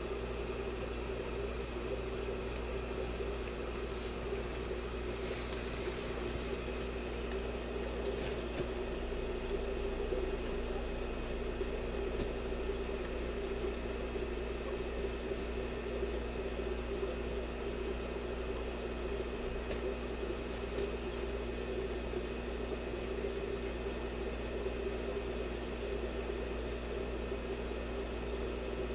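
Steady mechanical hum of aquarium equipment, a constant drone with a few fixed tones and no change in level. A few faint clicks come about four to eight seconds in.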